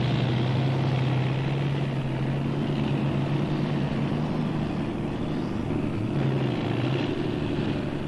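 Heavy vehicle engine of landfill machinery running steadily, a low hum under a noisy rush.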